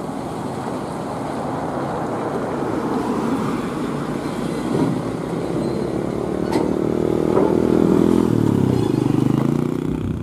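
Diesel engine of a UD Quester truck working under load as it hauls a lowboy trailer carrying a crawler-crane track frame, growing louder and changing pitch as it pulls past, with a sharp knock a little past halfway.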